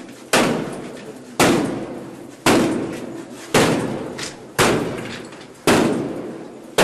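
A wooden door being struck hard again and again to force it open, one heavy bang about every second, each with a short ringing tail.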